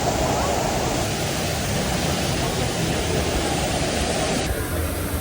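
Steady rushing roar of the Düden waterfall's falling water; about four and a half seconds in, the higher hiss suddenly drops away.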